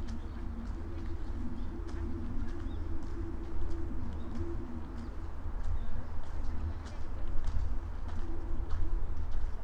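Pigeons or doves cooing in low, repeated phrases, with the steady footsteps of someone walking, about two steps a second.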